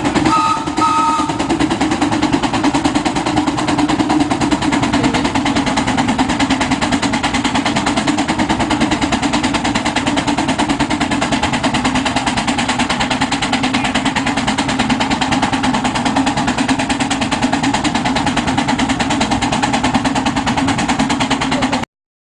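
Half-scale Case 110 hp steam traction engine belted to a fan, working under load with a rapid, steady exhaust beat. A brief two-note tone sounds about half a second in, and everything cuts off suddenly near the end.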